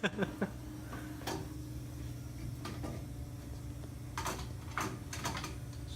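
A low steady hum with a few short clicks and light knocks scattered through it.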